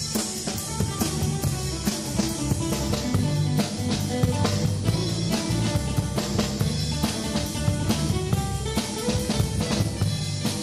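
Live band playing: a drum kit hit hard and fast, with kick, snare and cymbals, under strummed guitar and steady low notes.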